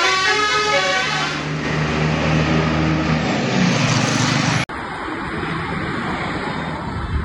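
A bus's melodic telolet horn cuts off at the very start, leaving the engine running with a steady low hum under loud road and traffic noise. About halfway through, the sound cuts abruptly to a quieter, steady vehicle noise.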